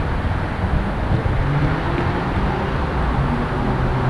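Steady rumble of city road traffic, an even noise with no distinct events.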